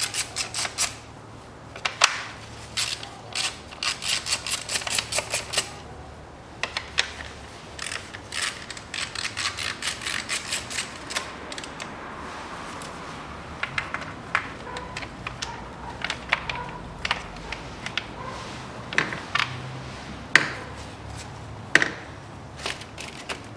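Hand ratchet clicking in quick runs as the bolts holding the spark-plug wire cover are undone. Later the runs give way to scattered single clicks and knocks from the tool and parts.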